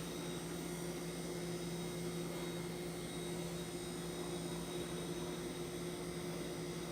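Electrolux kitchen appliance running with a steady electrical hum over a faint hiss.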